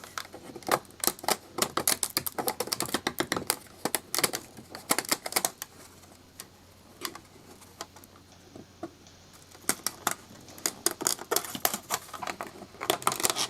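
Thin 3D-printed plastic support walls cracking and snapping as they are pried out from under a printed toolbox handle: rapid, irregular clicks in bursts, with a quieter pause in the middle before the clicking starts again.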